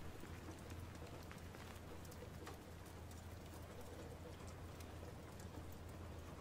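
Faint, steady ambient soundscape: a low hum under a soft hiss, with scattered light ticks.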